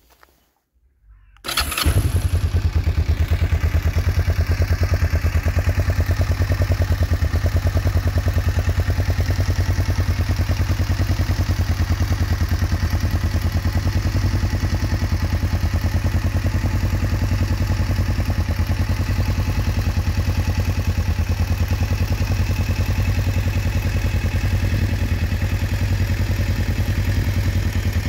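Kawasaki EN500's liquid-cooled parallel-twin engine is started on the electric starter about a second and a half in. It catches at once and runs steadily at an even idle.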